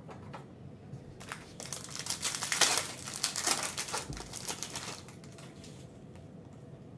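Foil trading-card pack wrapper crinkling and crackling as it is opened and the cards are pulled out, for about four seconds, loudest in the middle.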